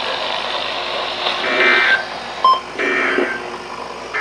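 Steady static hiss from a weather radio broadcast between spoken alerts, with a short beep about two and a half seconds in.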